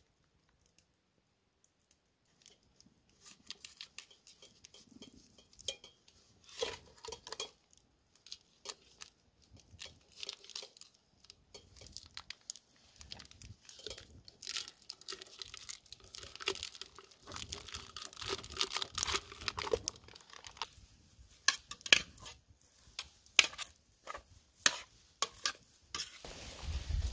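Packaging being torn open and crinkled, with scattered sharp clicks and knocks of cookware, getting busier toward the end. It starts after a couple of seconds of near silence.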